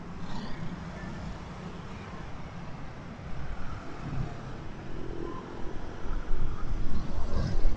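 Road traffic passing on a highway: cars, motorcycles and a truck going by, with a low rumble growing louder near the end.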